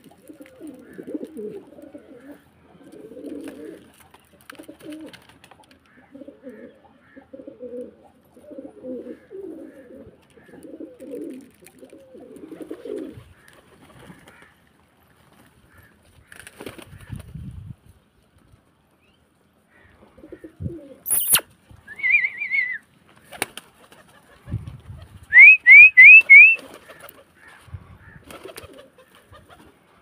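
Domestic pigeons cooing over and over in low throaty phrases through the first half. Later comes a sharp click, then four quick, loud rising whistles in a row near the end.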